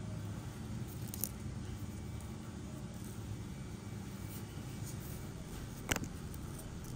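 Steady low background rumble, like distant road traffic, with a faint tick about a second in and a single sharp click just before six seconds in.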